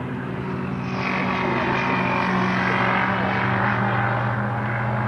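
Car engine running at speed with a steady drone, a broad rush of noise swelling up about a second in.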